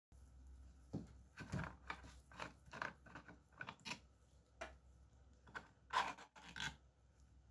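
Gloved hands handling 3D-printed plastic parts, with a string of irregular clicks, rubs and scrapes as a threaded plastic cap is turned off and set down.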